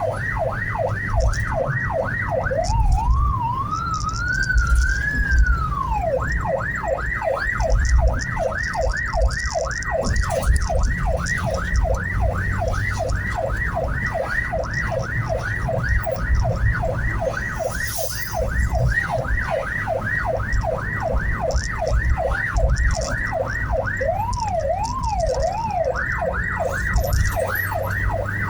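Ambulance electronic siren in fast yelp, about four rising sweeps a second. It switches briefly to a slower rising and falling wail about three seconds in, and to a few slower sweeps near the end, over the low rumble of the ambulance's engine and road noise.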